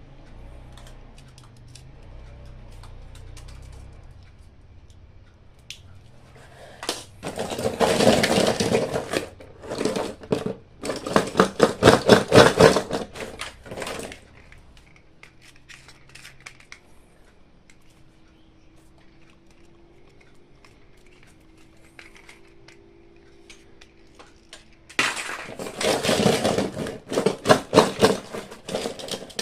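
Toy packaging being opened by hand: two long stretches of dense, rapid crackling and rustling, one about a quarter of the way in and one near the end, with quieter handling between them.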